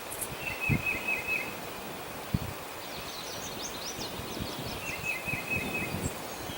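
Songbirds singing in open country: one bird sings a short phrase of quick repeated notes twice, a few seconds apart, and another gives a cluster of quick higher chirps in between. Low thumps and rustling run underneath, with wind noise.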